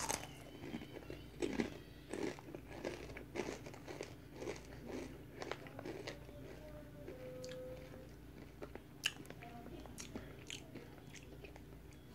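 A Takis rolled tortilla chip being bitten and chewed with the mouth open to the mic: a sharp crunching bite at the start, then crunches about twice a second that thin out in the second half.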